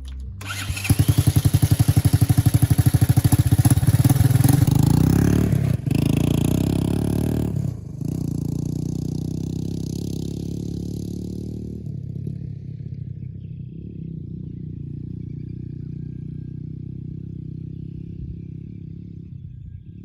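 Four-wheeler (ATV) engine revving up about a second in, loud with rapid even firing pulses, dipping briefly twice around six and eight seconds in, then running steadier and quieter as it slowly fades.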